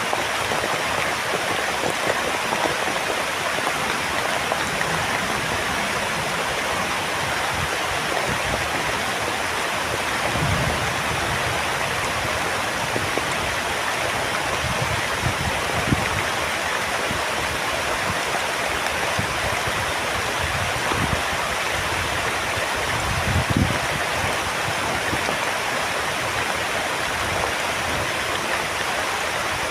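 Heavy rain falling steadily as a dense hiss, broken by a few short, dull low thuds about halfway through and again near the end.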